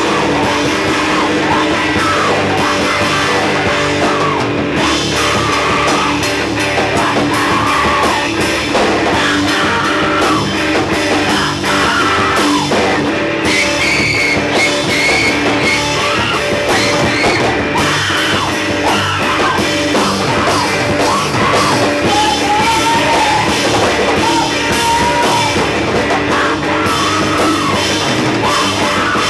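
Live emo rock band playing loud: bass guitar and drum kit with cymbals, with vocals over the top.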